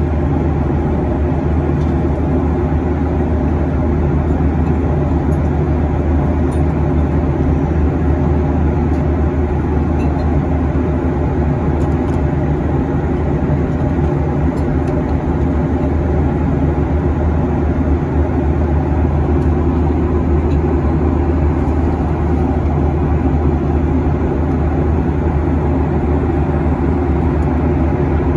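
Steady cabin noise of a Boeing 737-800 at cruising altitude: the low hum of its CFM56-7B turbofan engines blended with airflow rushing past the fuselage, heard from inside the cabin at a window seat.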